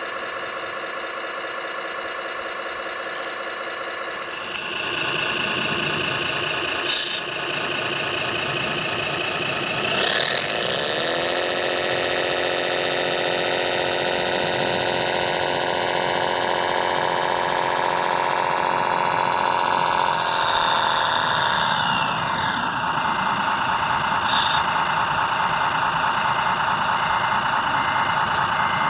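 Radio-controlled Liebherr mobile crane model running while its boom and hook are worked: a steady engine-like hum that shifts in pitch a few times, gliding into a new tone about ten seconds in and again about twenty seconds in. There is a short knock about seven seconds in.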